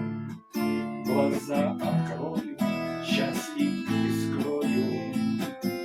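Two acoustic guitars playing an instrumental passage of strummed chords, with no singing.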